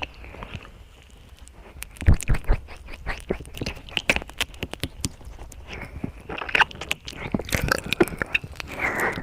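ASMR mouth sounds: a quick, irregular run of wet clicks and smacks, with short breathy stretches about two-thirds of the way through and again near the end.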